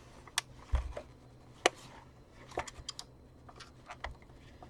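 Scattered clicks and taps of hard plastic as a handheld vacuum's casing is handled and worked apart, with a dull knock just under a second in and a sharper click a little later.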